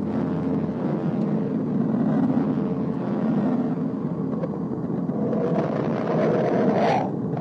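A space sound clip presented as the sound of Mercury: a dense, distorted rumbling drone like an airplane passing by. About five seconds in, a brighter tone swells and rises, then cuts off suddenly.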